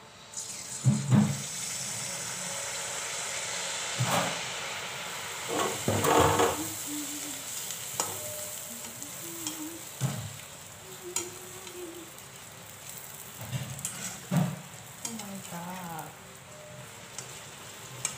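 Malpua batter frying in hot oil in a wok with a steady sizzle that starts as the batter goes in. A metal ladle and slotted spoon knock against the wok now and then, loudest about a second in.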